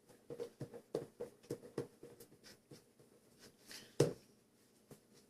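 A utensil stirring and scraping in a bowl of slime mixture, in short quick strokes about three a second that taper off, then one louder scrape about four seconds in.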